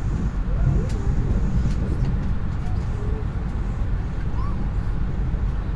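Steady low rumble of a Lastochka electric multiple unit running at speed, heard from inside the passenger car.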